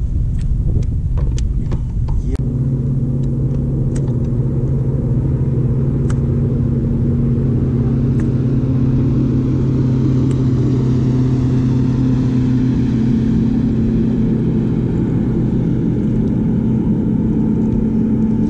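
A steady motor hum over a low rumble, beginning a couple of seconds in and holding evenly. A few light clicks come in the first six seconds.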